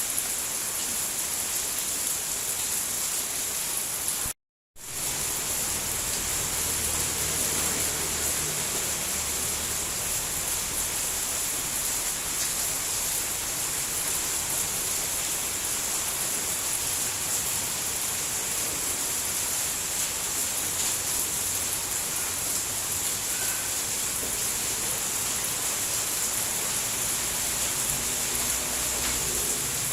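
Steady, dense rain hiss with no let-up. The sound cuts out completely for about half a second roughly four seconds in, then resumes.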